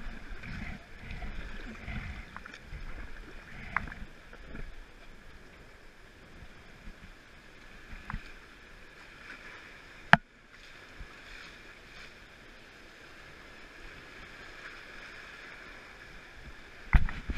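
Steady rush of river water around an inflatable raft running whitewater, with low rumbling bumps in the first few seconds. A few sharp knocks, likely paddles striking the raft, come through; the loudest is about ten seconds in, and several more follow near the end.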